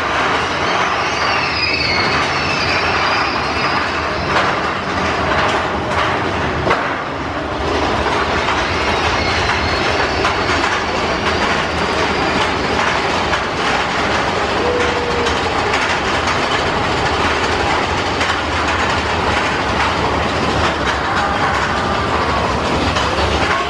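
Big Thunder Mountain Railroad mine-train roller coaster running on its track, with a steady rattle and clatter from the train.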